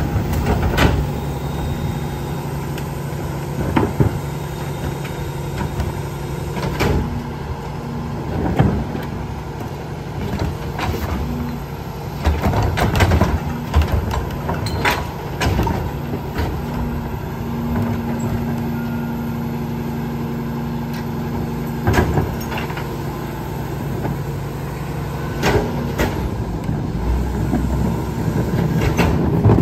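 Peterbilt garbage truck with a New Way rear-loader body idling while recycling carts are tipped into its hopper, with a steady engine drone. Over it come repeated loud bangs of plastic carts against the hopper and the clatter of recyclables dropping in.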